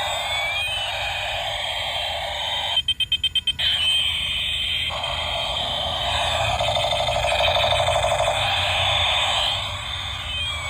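Electronic siren-like sound effect: tones sliding up and down in pitch, with a quick run of about eight sharp beeps a little under three seconds in and a fast pulsing tone in the middle.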